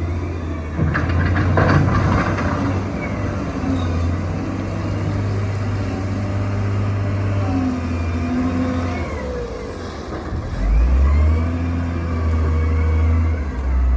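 Shantui D31P crawler bulldozer's diesel engine running under load, its note rising and falling as it works. There is some metallic clanking about one to two seconds in, and the engine comes up louder again about eleven seconds in.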